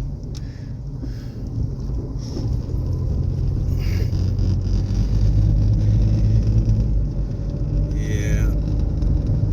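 Steady low rumble of a car's engine and tyres, heard from inside while driving. It grows somewhat louder after about three seconds, with a brief falling squeak near the end.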